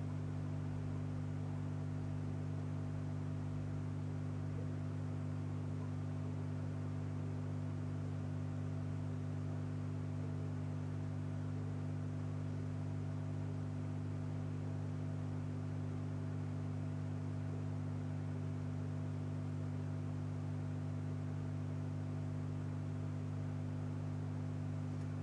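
Steady low electrical hum made of several unchanging tones over a faint hiss, with no change in level.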